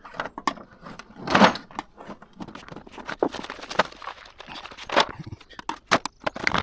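Metal hand tools clinking and clattering irregularly while being rummaged through in a toolbox, with several sharp knocks.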